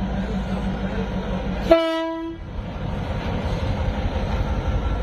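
Diesel locomotive of a passenger train running with a steady low rumble, cut by a single short blast of its horn, the loudest sound, nearly two seconds in.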